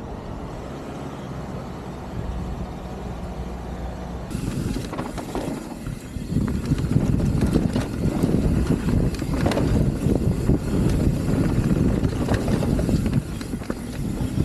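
Wind buffeting the uncovered built-in microphones of an Insta360 X3 camera on a fast mountain-bike ride: a loud, rough, rumbling noise with gusting surges. The sound of riding without wind covers, even with the camera's wind reduction on. About four seconds in it cuts in abruptly after a quieter stretch with a steady low hum.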